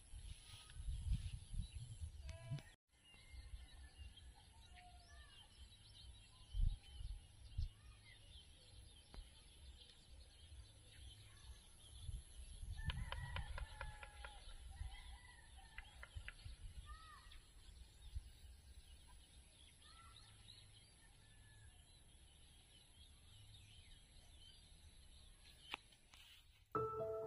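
Faint outdoor ambience: scattered short bird chirps and calls over a gusty low rumble of wind on the microphone. Music begins just before the end.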